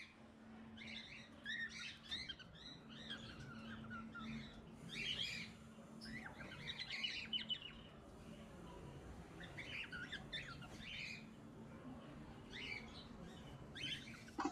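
Aviary parrots, cockatiels among them, chirping in short clusters of quick high calls that come and go every second or two.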